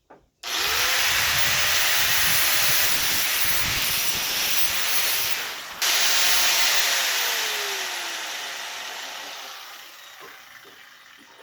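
Small angle grinder grinding a piece of hardened plough-disc steel, shaping a half-moon engine key. It switches on about half a second in with a rising whine. It cuts out briefly before six seconds, then runs again and winds down with a falling whine as the grinding sound fades over the last few seconds.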